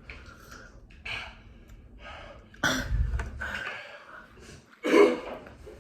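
A person breathing hard and gasping from the burn of very hot wing sauce, with two sharp loud breaths about three and five seconds in.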